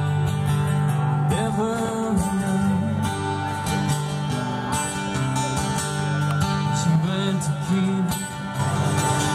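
Live band playing country-style music on guitars.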